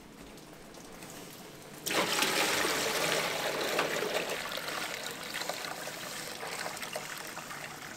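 Maple sap poured from a plastic bucket into a steaming stainless steel evaporator pan: a faint hiss, then the pour starts abruptly about two seconds in, strongest at first and slowly easing off.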